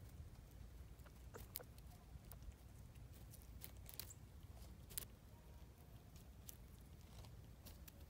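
Faint, irregular small clicks and crackles of a gray squirrel picking through and cracking birdseed close by, over a low steady rumble.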